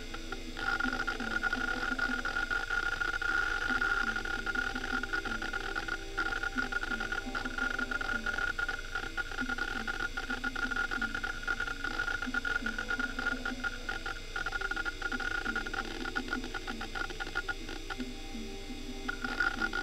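Western Digital Caviar 21200 IDE hard drive reading data, its heads seeking rapidly: a dense, irregular chatter of actuator clicks over a steady high whine that drops out briefly a few times.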